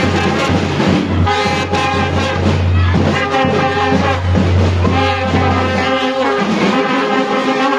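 A marching band of bugles and side drums playing, the bugles sounding held notes that change pitch.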